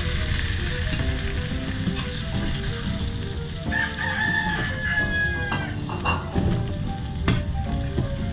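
Raw shrimp sizzling in melted butter in a wok as a spatula stirs them, with a sharp knock of the spatula on the pan near the end. About four seconds in, a rooster crows once, lasting about two seconds.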